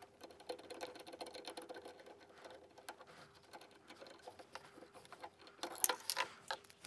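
Faint, rapid metallic clicking and scraping as a nut is unscrewed with a socket driver from a tumble dryer's fan shaft, with a few louder clicks near the end.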